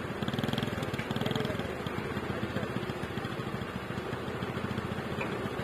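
Fiat 480 tractor's diesel engine running steadily at low speed, with a fast even low pulse, as it pulls a heavily loaded sugarcane trolley.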